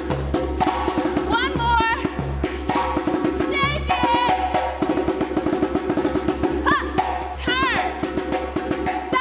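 Live drumming for an African dance class: a fast, steady run of drum strokes. A voice cuts in with short sliding calls several times.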